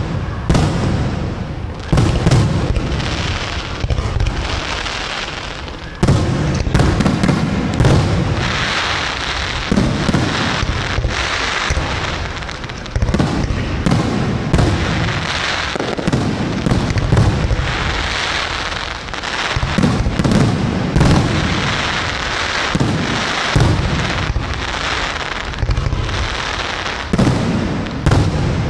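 Aerial fireworks display: shells bursting overhead with booms every second or two, and a steady crackle filling the gaps between them.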